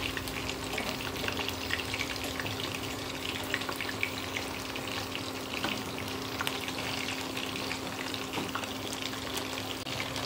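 Food frying in hot oil: a steady sizzle thick with small crackles and pops, over a faint steady hum.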